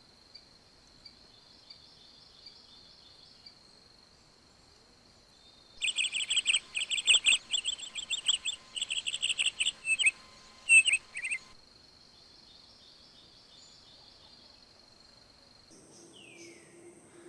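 A bird giving a rapid series of loud, repeated chirps for about six seconds, over a steady high trilling of crickets. Near the end the background changes and a single falling whistle is heard.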